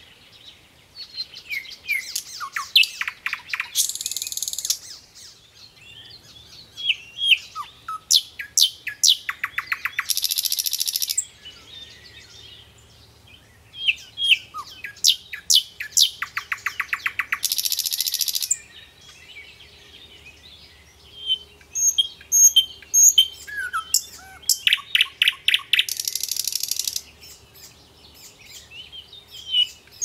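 Songbirds singing: a phrase of chirps and a fast rattling trill comes four times, about every six to seven seconds, with scattered high chirps in between.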